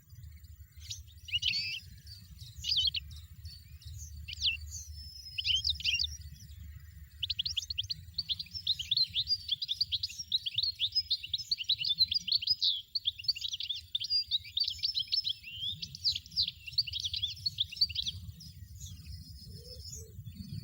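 European goldfinch singing: a few short separate calls at first, then a long, rapid twittering song lasting about ten seconds, over a faint low rumble.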